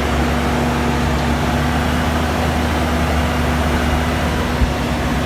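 Steady engine-like running noise with a deep hum and a steady tone over it, unchanging in level; a single short knock about four and a half seconds in.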